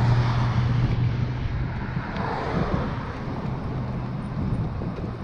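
Road traffic: a passing motor vehicle's low, steady engine hum that fades away over the first few seconds, over a background of road noise and wind on the microphone.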